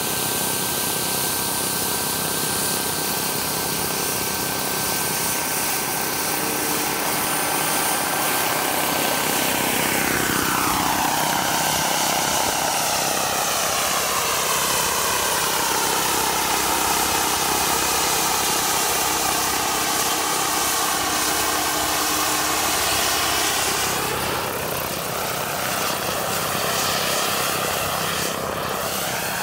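Large-scale RC UH-1D Huey helicopter's model gas-turbine engine and rotor running: a steady high whine for about the first ten seconds, then the sound sweeps down in pitch and keeps shifting as the helicopter lifts off and hovers.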